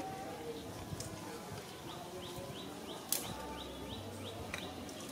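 A bird calling in a steady series of short falling chirps, about three a second, with one sharp click about three seconds in.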